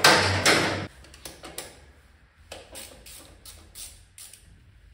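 Workshop tool noise while unbolting a scooter's CVT cover: a loud rushing burst about a second long at the start, then faint regular mechanical clicks about three a second.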